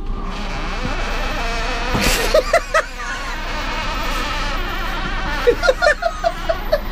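RV generator's fuel pump buzzing with a steady whine while the prime switch on the control panel is held. A sharp click comes about two seconds in, and short rapid chirps near the end.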